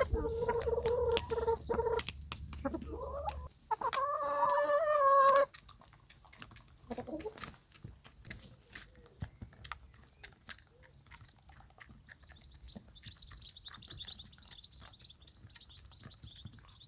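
Domestic hens calling: two loud, drawn-out, level-pitched calls in the first five seconds, then soft clucking with scattered light ticks.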